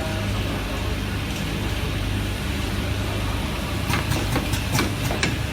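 Automatic cable soldering machine running with a steady hum, with a quick series of about five sharp mechanical clacks a little before the end.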